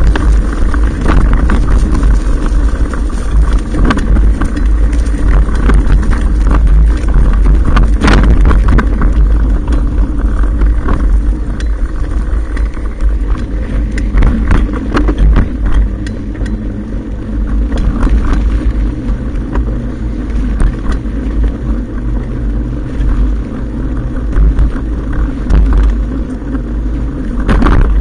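Mountain bike riding fast over a rough dirt trail: a constant heavy wind rumble on the fork-mounted camera's microphone, tyre rolling noise, and frequent sharp knocks and rattles as the front wheel and suspension fork hit bumps, one hard knock about a third of the way in.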